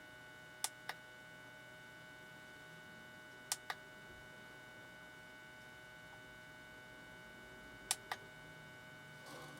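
Push button on a portable lithium jump starter clicked three times, each a quick press-and-release double click, a few seconds apart, over a faint steady electrical hum.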